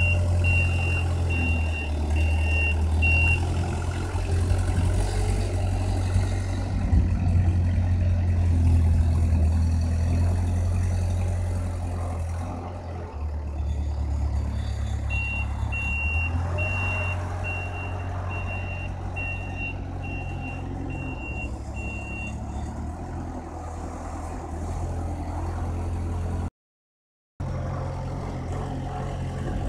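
Wolf WL780 compact wheel loader's four-cylinder XiChai diesel running steadily, with its reversing alarm beeping about twice a second at the start and again for about seven seconds in the middle. The sound cuts out for about a second near the end.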